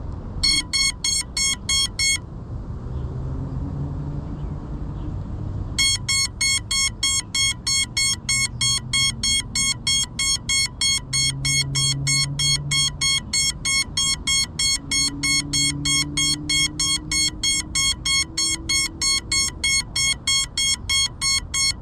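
Crashed FPV quadcopter's lost-model beeper sounding rapid high beeps, about three a second. The beeping starts about half a second in, stops briefly after a couple of seconds, and resumes about six seconds in, then keeps going. It is the locator alarm that helps the pilot find the downed drone in the grass.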